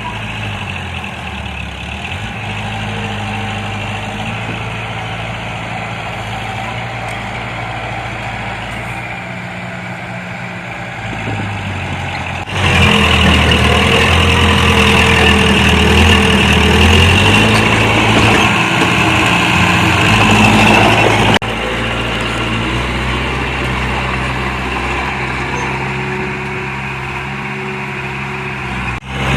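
Diesel engine of heavy earthmoving machinery running steadily, then much louder and working with changing pitch for about nine seconds in the middle before dropping back abruptly.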